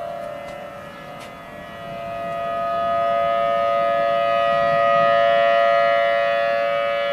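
Outdoor tornado warning siren sounding a steady, held wail that grows louder about two seconds in, peaks around five seconds and then eases slightly.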